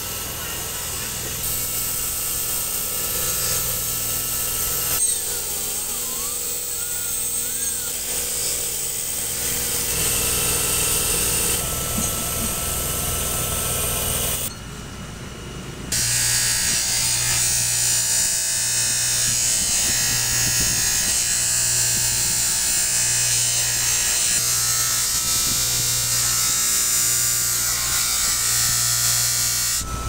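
Electric power tools running steadily, with abrupt changes in the sound about five seconds in and again near the middle, where it goes quieter for a moment. Through the second half a low hum pulses on and off about every second and a half.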